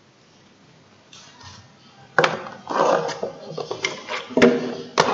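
Objects being handled close by: after a quiet start, a run of sharp clicks, knocks and clattering begins about two seconds in.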